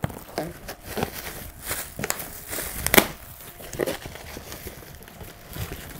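Packaging being handled and unpacked: crinkling and rustling, with a sharp click about three seconds in.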